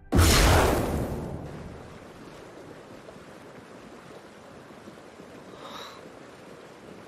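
A sudden loud crash right at the start that dies away over about a second and a half, then a steady faint rushing of water.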